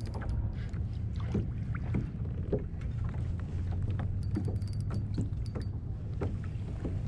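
Fishing kayak on calm water: scattered small clicks and knocks from handling the line and gear, over a steady low rumble of wind on the microphone.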